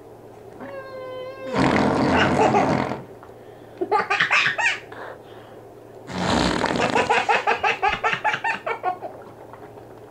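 A child laughing hard in two fits, breathy bursts breaking into quick runs of ha-ha pulses, with a short squeaky tone just before the first fit.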